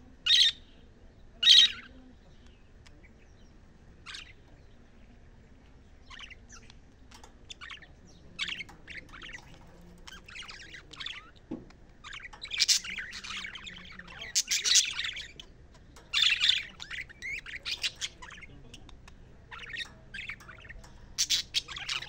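Caged budgerigars chirping and chattering. There are two sharp calls in the first two seconds. From about six seconds in comes a run of quick chirps and warbles, loudest in bursts around the middle and near the end.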